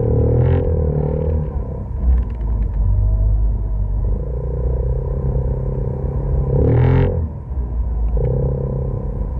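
Off-road vehicle's engine running as it drives across loose sand and pea gravel, heard close from a hood-mounted camera. Its steady drone fades and returns a few times, with a brief rush of noise about seven seconds in.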